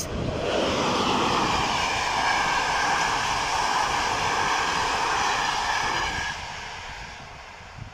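Passenger train coaches running past at speed: a steady rush of wheels on rail with a few steady tones above it. The rush drops off about six seconds in as the last coach clears, leaving a fading rumble.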